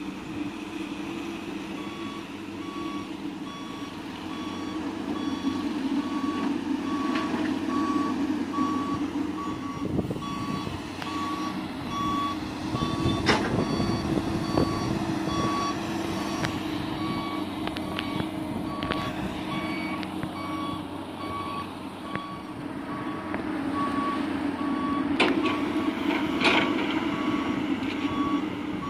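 Dump truck's reversing alarm beeping steadily and evenly over its diesel engine running, as the truck backs up. A few sharp knocks come at intervals.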